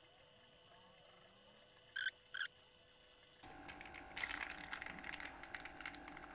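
A plastic bag of water crinkling in the hand and water splashing from it into a jar, a dense irregular crackle that starts about three and a half seconds in. Earlier come two short sharp rustles about half a second apart.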